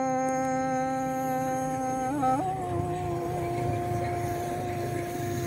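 A voice singing Hmong kwv txhiaj (sung poetry), holding one long note that slides up to a higher held note about two seconds in.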